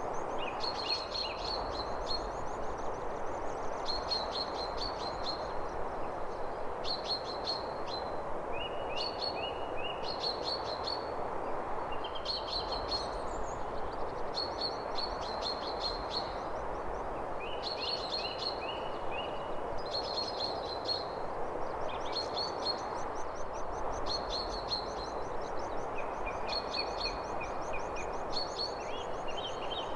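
Songbirds chirping and trilling in short repeated phrases every second or two, over a steady hiss of background noise.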